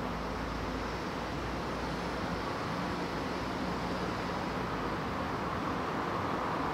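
Steady rushing noise of road traffic, growing slightly louder near the end.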